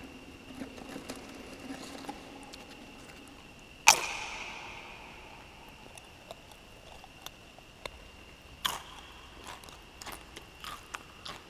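Metal camp cookware being handled: a sharp clang about four seconds in that rings out for over a second, a second ringing clang near nine seconds, and light clicks of handling between, over a faint steady high whine.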